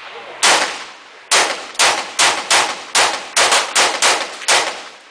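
Norinco CQ-A1 short-barrelled .223 AR-15 carbine fired semi-automatically: a single shot, a short pause, then a quick string of about ten shots at roughly two to three a second.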